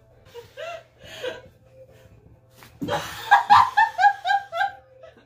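A person laughing: a few short giggles, then about three seconds in a loud run of high-pitched laughter, about four 'ha's a second, lasting around two seconds.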